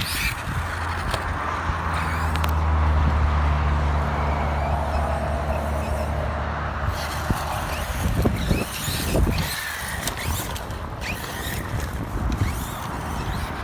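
Radio-controlled monster trucks driving and revving across dirt. A steady low hum runs under them and stops about seven seconds in, after which the sound turns uneven, with short revs rising and falling.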